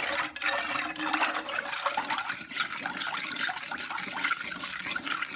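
A whisk beating a runny mix of lemon juice, sugar and cornstarch in a metal saucepan, with quick, continuous sloshing and splashing.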